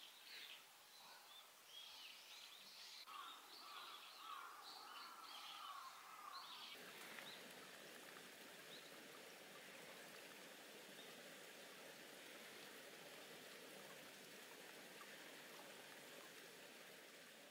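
Faint birdsong, short chirps and warbling calls, for the first several seconds. About seven seconds in it gives way abruptly to a faint, steady hiss of running water or rain.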